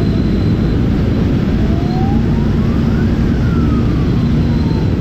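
Loud, steady low rumble of wind and engine noise from a motorcycle ride, with a faint siren-like tone that rises slowly and then falls once near the middle.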